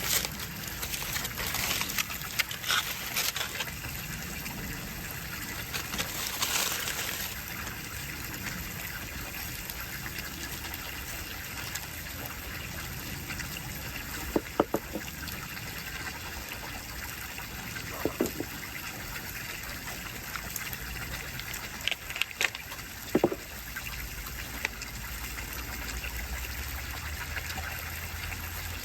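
Running water, a steady trickling gush, with a few sharp clicks or knocks partway through.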